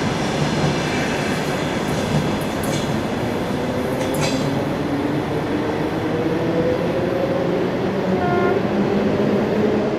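Passenger train coaches rolling along the rails: a steady, loud rumble of wheels with a few sharp clicks over rail joints, and a brief high tone just after eight seconds.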